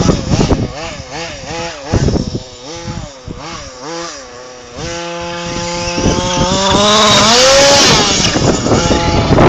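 Small engine of a radio-controlled off-road car revving up and down in quick, repeated throttle bursts, then holding a longer run with its pitch climbing. Wind buffets the microphone more and more toward the end.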